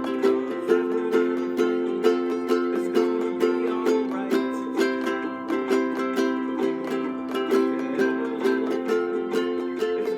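Ukulele strummed steadily in an even rhythm, about two strums a second, its chords ringing on.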